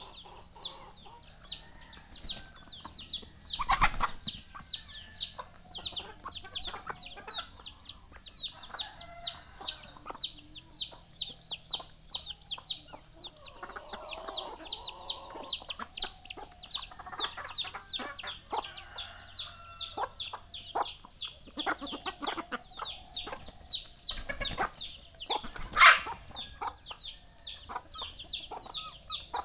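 Chickens peeping continually: short, high chirps, about three or four a second, with clucking in between. There is a loud knock about four seconds in and a louder call near the end.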